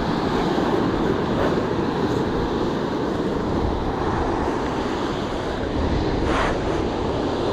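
Steady wind rumbling on the microphone over the wash of breaking surf, with a brief hiss about six seconds in.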